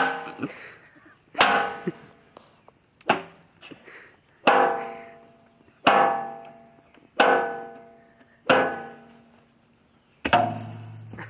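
The Allis-Chalmers garden tractor's sheet-metal body being whipped: eight clangs about a second and a half apart, each ringing and fading away. A low steady hum comes in near the end.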